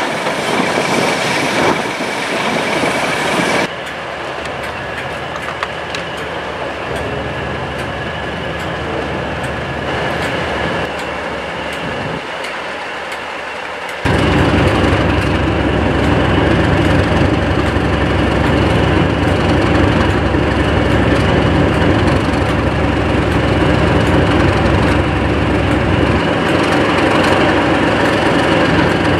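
A hiss for the first few seconds. Then, about halfway through, a loud steady running sound sets in suddenly: the English Electric V12 diesel engine of Class 37 locomotive D6729 idling.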